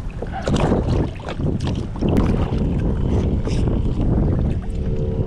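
Wind rumbling on the microphone, with scattered knocks and clatter as a plastic bait bucket and gear are handled on a kayak deck.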